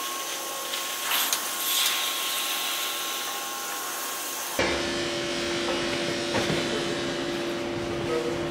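Foam-sheet production line machinery running with a steady hiss and whir. About halfway through it changes abruptly to a lower machine hum with a steady tone.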